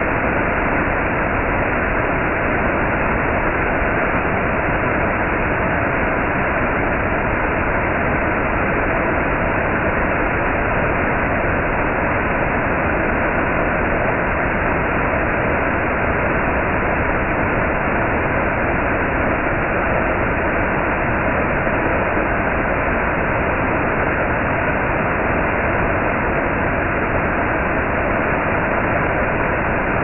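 Underground waterfall in a cave: water falling from the rock roof and splashing below, a loud, steady, even noise that does not change.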